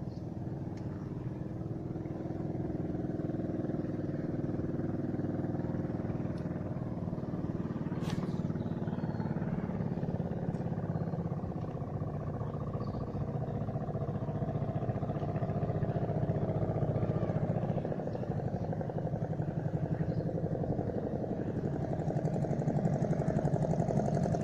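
A small engine running steadily with a fast, even pulse, growing somewhat louder over the stretch. There is a single sharp click about eight seconds in.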